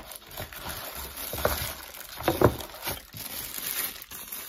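Paper wrapping rustling and crinkling as it is handled and pulled out of a cardboard box, with two louder handling noises, the louder about two and a half seconds in.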